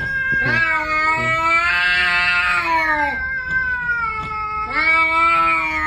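Cat yowling in a face-off with another cat: a long, drawn-out yowl lasting about four and a half seconds, wavering in pitch, then a second long yowl starting near the end. Such yowling is a cat's threat warning in a standoff.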